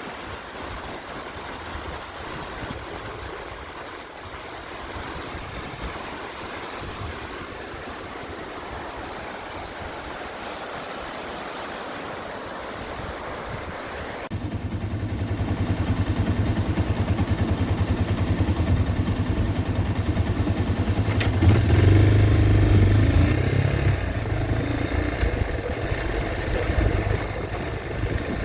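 A steady rushing noise that cuts suddenly, about halfway through, to a Yamaha Serow 225's single-cylinder engine running. The engine's revs rise briefly around two-thirds of the way in.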